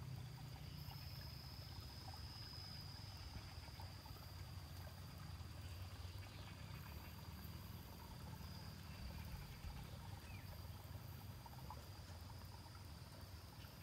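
Faint rural field ambience: a steady, high-pitched insect drone over a low rumble.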